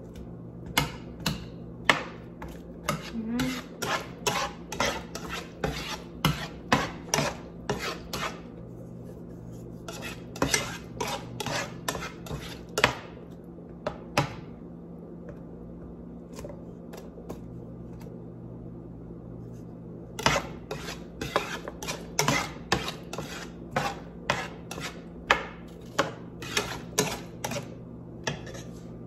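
A spatula scraping and knocking against a frying pan as chopped onions are stirred. The strokes come about two a second in spells, with a pause of several seconds in the middle.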